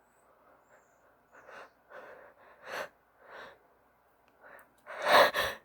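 A woman's allergy sneeze from a pollen-itchy nose: a run of short, catching in-breaths as it builds, then a loud sneeze near the end.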